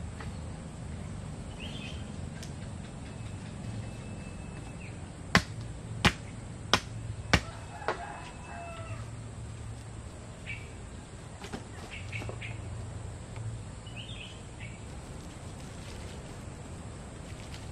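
Four sharp knocks, a little over half a second apart, from bamboo trellis poles being handled and knocked into place, with a weaker fifth knock just after. Birds chirp briefly now and then.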